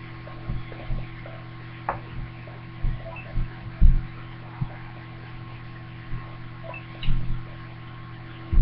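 Steady electrical mains hum under irregular short, low knocks and bumps, the loudest about four seconds in.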